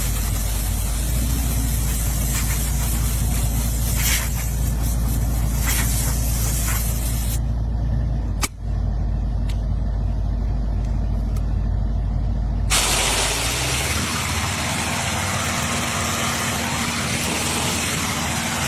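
Compressed air hissing as dust is blown out of an air filter element, in surges for the first several seconds and then as a continuous blast from about two-thirds of the way in, over a steady low machine hum. There is a brief dropout about eight and a half seconds in.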